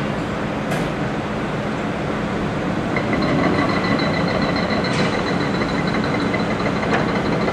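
Hydraulic hammer on a Komatsu PC300 excavator pounding rapidly and steadily over the excavator's running diesel engine. A steady high whine joins in about three seconds in.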